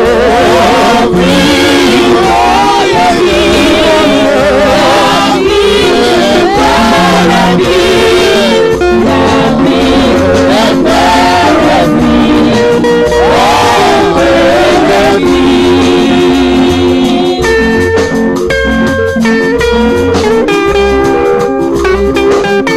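Live church praise music: singing voices over electric guitar and keyboard. The singing stops about three-quarters of the way in, and the band plays on alone.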